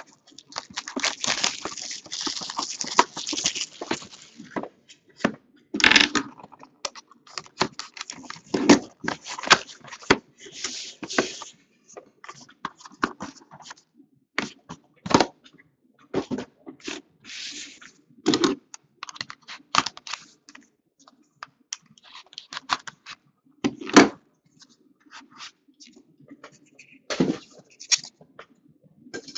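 A sealed box of baseball trading cards being opened by hand. A tearing rustle runs for the first few seconds, then come scattered scrapes, taps and knocks of the cardboard box, its lid and the inner box being handled.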